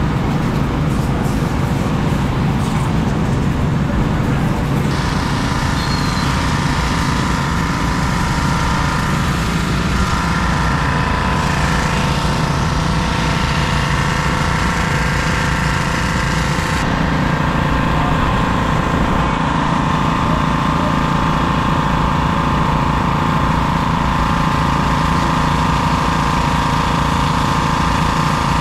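Pressure washers running steadily, their motors and pumps humming under the hiss of water jets as muddy bikes are sprayed clean. The mix of tones shifts about five seconds in and again a little after the middle.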